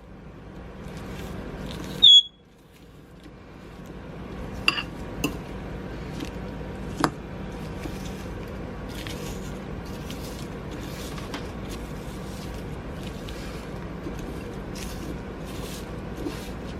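A short, loud electronic beep about two seconds in. After it come scattered light clinks and taps of a utensil against a bowl as a sweet potato mixture is mashed and stirred by hand.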